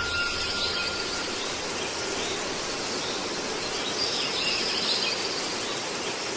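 A steady, even hiss-like noise, with faint wavering high tones drifting through it now and then.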